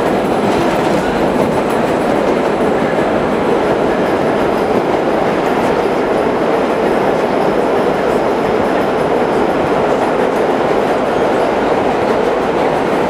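Restored 1930s R1–R9 subway cars running fast through a station, a loud, steady noise of wheels on track heard from inside the car.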